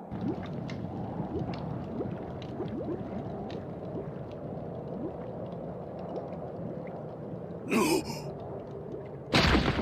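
Anime sound effects of a magma fist pressed against a sword blade: a steady low rumble, broken about eight seconds in by a short loud burst, then a loud hit just before the end.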